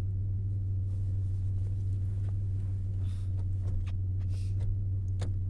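Steady low rumble inside a moving car's cabin: engine and road noise, with a couple of faint soft rustles.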